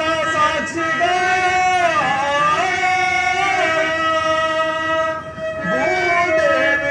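Live stage-drama music: a long-held melodic line that slides down and back up in pitch twice, over a steady drone.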